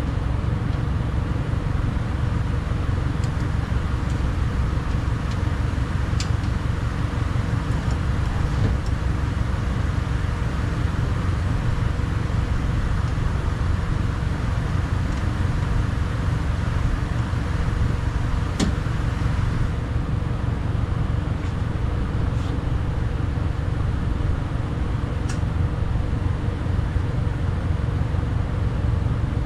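Steady low rumble with a faint hum, with a few light clicks of hands and parts moving inside a car door shell.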